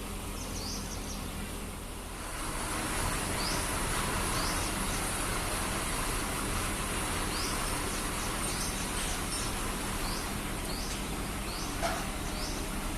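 Borewell drilling rig running: a steady machine noise over a low hum that grows louder about two seconds in and then holds. Short high chirps repeat above it.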